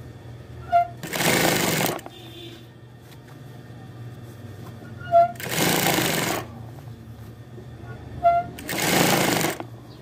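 Industrial sewing machine stitching a seam in three short runs of about a second each, each run opening with a short sharp chirp. A low steady motor hum continues between the runs.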